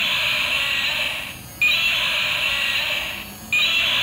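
Battery-powered toy dinosaur's built-in speaker playing its recorded roar over and over, each roar about two seconds long, starting suddenly and fading; one runs on from just before, another starts about a second and a half in, and a third near the end.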